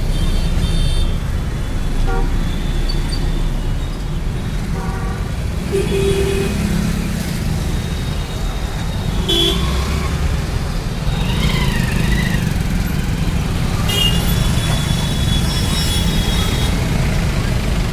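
Busy road traffic: a steady rumble of engines and tyres, with about half a dozen short vehicle horn toots scattered through it.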